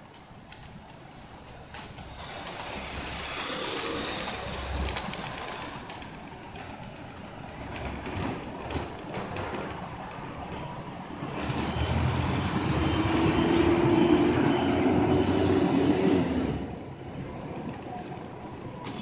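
Busy city street traffic: cars and motor scooters running past. About two-thirds of the way through, a louder engine hum swells for several seconds, then drops off suddenly.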